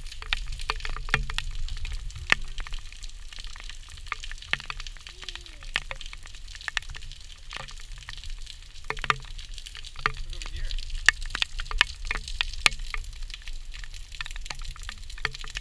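Rain falling on a wet concrete patio: a steady hiss with many sharp, irregular clicks of drops landing close by.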